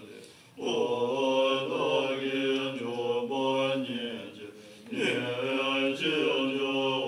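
Group of Tibetan Buddhist monks chanting together in unison, low voices holding long notes. The chant breaks off for a breath just after the start, resumes, dips again a little past halfway, then swells back in.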